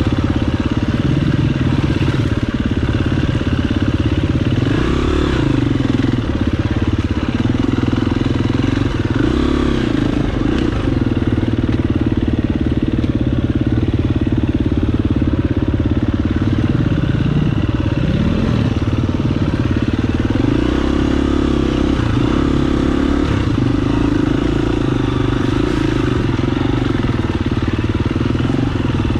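Dirt bike engine running continuously on a trail ride, its pitch rising and falling several times as the throttle is opened and closed.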